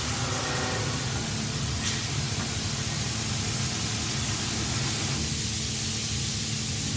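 Brush sanding machine running, its rotating sanding brushes working a round wooden profile fed through by rubber feed rollers: a steady hiss over a low motor hum, with a single click about two seconds in.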